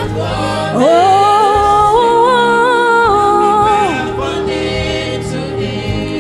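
Gospel worship singing: a voice holds one long, wavering note over a steady instrumental backing.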